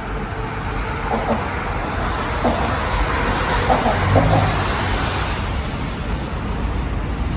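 Road traffic on the bridge, a steady rush of passing vehicles that swells around the middle.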